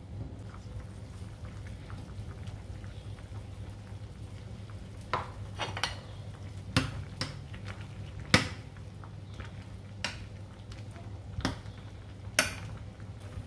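A ladle knocking against a pot of hot soup as it is stirred: about eight sharp clinks, most in the second half, over a steady low hum.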